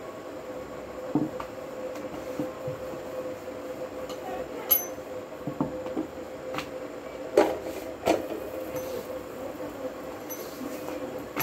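Wooden rolling pin rolling chapati dough on a rolling board, with irregular knocks and clinks as it is pressed and set down. The loudest knocks come about two thirds of the way through. A faint steady hum runs underneath.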